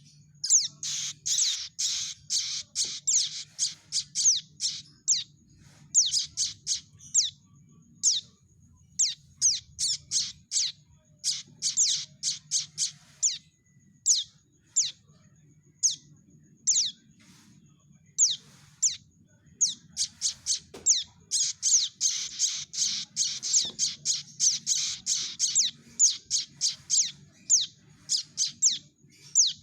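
Young prenjak (prinia) birds giving their begging calls: rapid, high, squeaky notes, each sweeping quickly downward in pitch. The calls come in dense runs near the start and again about two-thirds through, with scattered single calls in between. This is the call used to lure prenjak when trapping.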